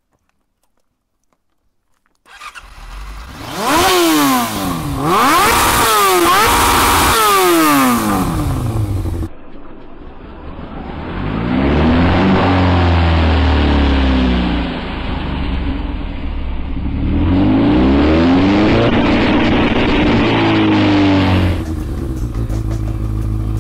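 Yamaha R1 inline-four sportbike engine revving hard through a Yoshimura RS-3 exhaust, its pitch rising and falling through repeated revs. It starts about two seconds in and comes in two long stretches of revving.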